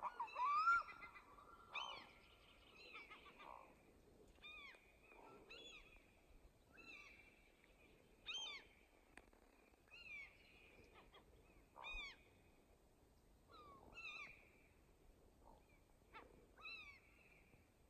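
Faint bird calls: short cries repeated about once every second or so, each one quickly rising and falling in pitch.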